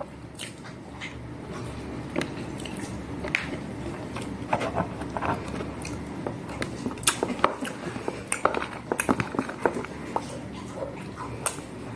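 Close-up crunching and chewing of crisp fried dried fish (tuyo and dilis), in irregular sharp crunches that come thickest a little past halfway through.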